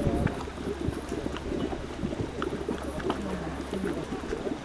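Geothermal mud pool bubbling: thick boiling mud popping and plopping in quick, irregular low blips.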